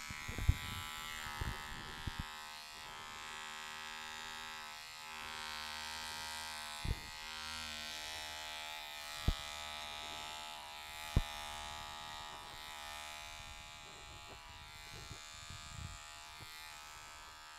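Electric hair clippers buzzing steadily as they cut hair close to the microphone, with four sharp knocks scattered through.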